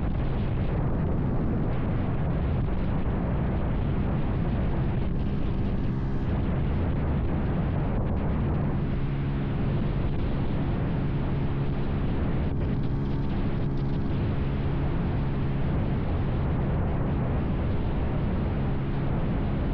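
Heavy wind buffeting on the microphone of a Vitacci XMT 250 motorcycle at highway speed, about 70 to 76 mph. The engine's steady note shows through, clearer from about nine seconds in.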